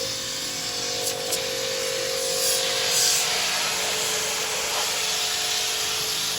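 Compressed air hissing steadily from an air tool, with a few brief louder blasts, over a faint steady hum.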